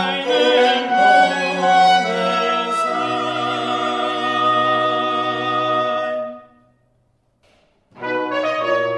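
Live recording of a Baroque cantata: a tenor sings over violins and basso continuo, the ensemble holds a chord that stops suddenly about six seconds in, and after a short silence the music starts again.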